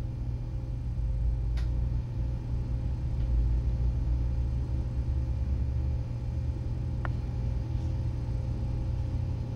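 Steady low rumble with a faint electrical hum, broken by a faint click about a second and a half in and a sharper click near seven seconds, the latter from a laptop trackpad being pressed.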